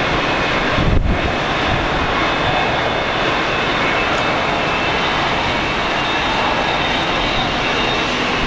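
Embraer ERJ regional jet's rear-mounted Rolls-Royce AE3007 turbofans running as the jet moves along the runway: a steady, loud rush of jet noise with a faint high whine.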